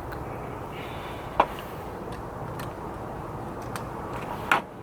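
A sharp click about a second and a half in and another near the end, with a few fainter ticks between, over a steady background hiss: light handling of electrical cable and an outlet box.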